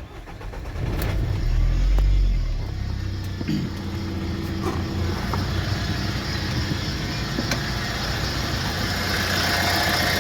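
Renault Master van's diesel engine starting, running up briefly about two seconds in, then settling to a steady idle, with a higher rushing noise building near the end. This is the strange engine-bay noise that persists after the hydraulic pump was replaced; the owner suspects a pulley.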